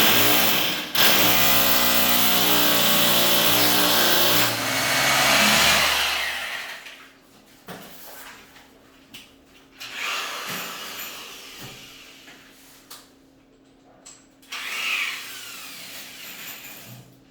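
Power drill running hard in two bursts, its motor pitch sagging as it labours under load, then winding down and stopping about six seconds in. A few light knocks and handling noises follow.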